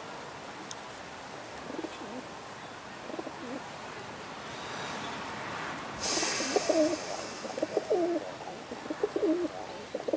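Rock pigeons cooing while feeding in a flock: a few faint low coos, then four louder ones in the second half. A steady hiss comes in suddenly about six seconds in.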